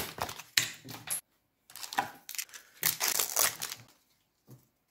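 Pokémon trading cards being handled by hand: a run of short rustling, scraping bursts as the stack is shuffled and sorted, stopping about a second before the end.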